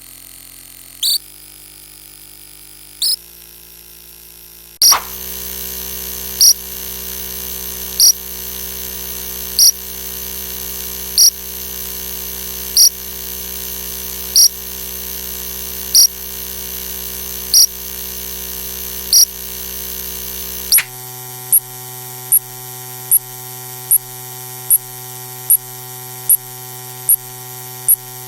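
Synthetic electronic sound effects: a steady buzzing hum made of many stacked tones, with short sharp blips repeating at an even beat. The hum switches to a louder, different tone about five seconds in and changes again about twenty seconds in, and the blips come about twice as fast after the second change.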